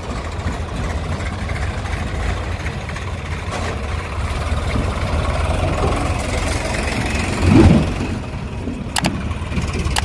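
Farm tractor diesel engines running with a steady low rumble, briefly louder as one revs about seven and a half seconds in.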